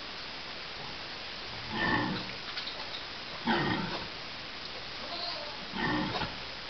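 Sow grunting three times, short low grunts about two seconds apart, the rhythmic grunting a sow makes while suckling her litter, over a steady background hiss.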